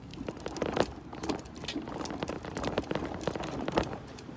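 Footsteps while walking, with many irregular small clicks, crackles and rustles throughout.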